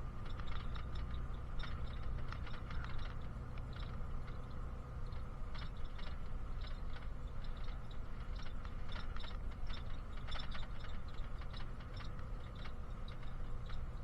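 Inside a moving bus: a steady low engine and road drone, with irregular light rattling and clicking from the cabin throughout.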